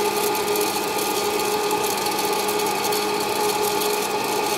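Electric hot-air popcorn maker running: its fan motor gives a steady hum while the hot air tumbles the unpopped kernels, which rattle in the chamber. The machine is still heating up, and no kernels have popped yet.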